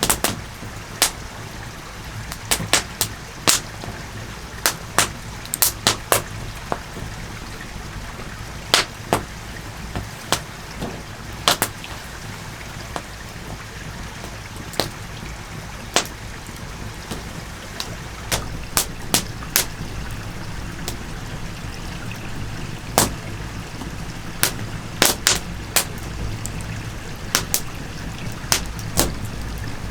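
Campfire crackling: irregular sharp pops and snaps, sometimes several in quick succession, over a steady low background noise.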